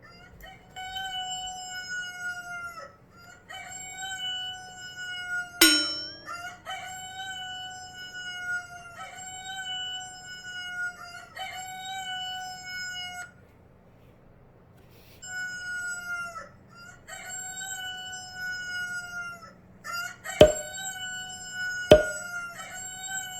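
Rooster crowing over and over, about nine crows of roughly two seconds each, with a break of about two seconds past the middle. Three sharp knocks cut in, the loudest two near the end.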